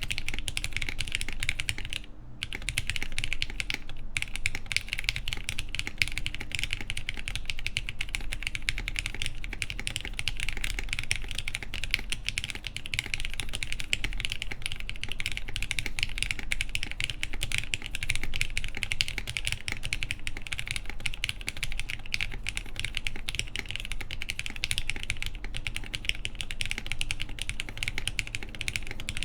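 Fast, continuous typing on an Elvenmonster Martingale mechanical keyboard with lubed Cherry MX Black linear switches, mounted on the PCB without a plate, under Hammer CRP keycaps. The keystrokes come in a dense stream, with two brief pauses about two and four seconds in.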